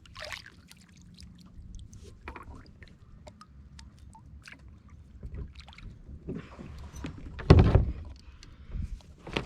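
A kayak being paddled across calm water: paddle blades dipping and dripping, with scattered small clicks and knocks, and one louder stroke near the end.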